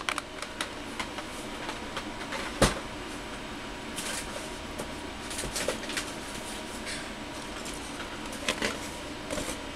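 Off-camera handling of cardboard toy boxes: scattered light knocks and rustles over a steady room hiss, with one sharper knock about two and a half seconds in and a few more near the end.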